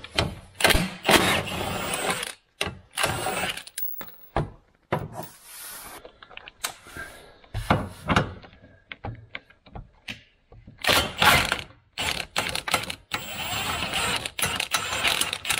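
Cordless impact wrench hammering in several bursts with short pauses between, backing out the bolts that hold a rear suspension arm; the longest run comes near the end.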